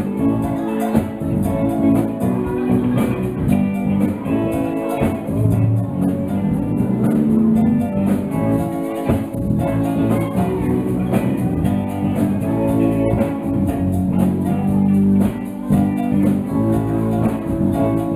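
A live show band playing dance music, with guitar prominent over a drum kit, steady and loud throughout.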